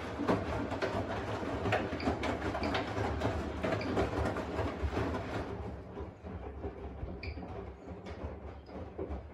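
Washing machine running: a steady motor hum under the drum turning, with laundry and water sloshing and knocking. It gets quieter about halfway through.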